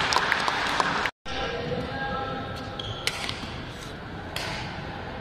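Badminton rally: sharp racket hits on the shuttlecock every second or so over a murmur of spectators, broken by a moment of silence about a second in.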